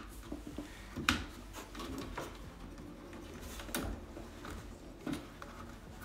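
Faint handling noises and clicks as cable connectors are fitted to an all-in-one liquid cooler's pump head, with three sharper clicks about one, four and five seconds in.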